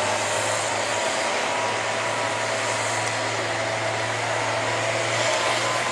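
Farm tractor engine running steadily under load while pulling a sled down a tractor-pull track.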